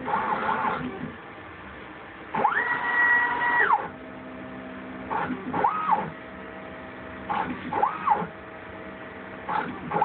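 Stepper motors (Xylotex 425 oz-in) of a DIY CNC router, driven by a Gecko G540 at 48 V, whining through a series of rapid moves. With each move the pitch climbs as the axis speeds up, holds, then falls as it slows. The longest move comes about two and a half seconds in and lasts about a second, and shorter moves follow every couple of seconds, with a steady low hum between them.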